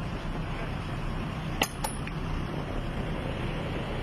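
Sharp metallic clicks, two close together about a second and a half in, as the rear door's lock bar and handle on a refrigerated box truck are released and the door is swung open, over a steady low rumble.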